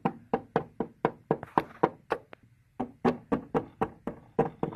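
Rapid clip-clop tapping, about four taps a second, imitating a horse's hoofbeats for a toy horse being walked along. The tapping breaks off briefly about halfway through, then resumes.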